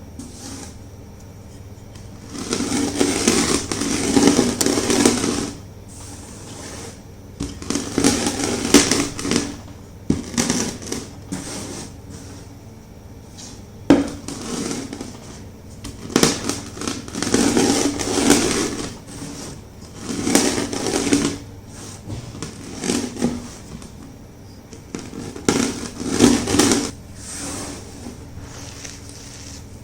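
Rolling pin crushing chunks of gym chalk: crunching, crumbling passes of one to three seconds each, about seven of them with short pauses between, and a single sharp click about halfway through.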